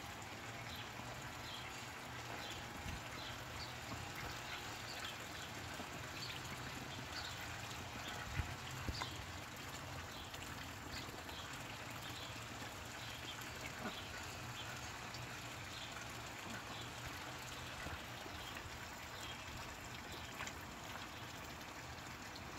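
Rouen ducks dabbling and splashing in a shallow pond as they hunt goldfish, over a faint steady background with many short high chirps. A few sharp clicks come about eight to nine seconds in.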